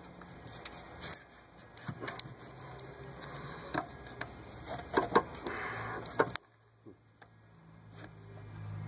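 Small sharp clicks and scrapes of a thin pick working at the plastic locking tab of an electrical connector on a throttle body, the clicks irregular and a second or so apart. The sound cuts off abruptly about six seconds in.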